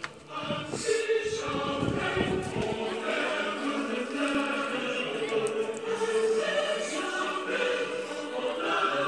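Choral music: a choir singing long held notes. Low rumbling under it for the first few seconds.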